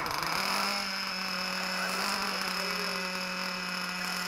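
An engine running steadily with a constant hum; its pitch dips briefly at the very start, then holds level.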